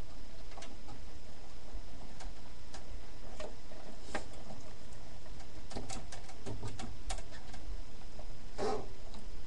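A plastic zip tie being threaded and pulled tight to hold a case fan inside a computer tower. The tie and the plastic parts give scattered sharp clicks, with a quicker run of ratchet clicks about six to seven seconds in and a short scrape near the end. A steady low hum runs underneath.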